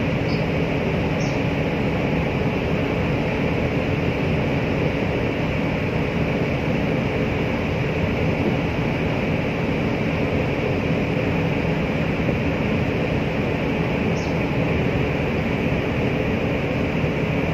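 Steady engine drone and rushing water of a boat underway, with a faint even hum, and a few brief faint high squeaks near the start and near the end.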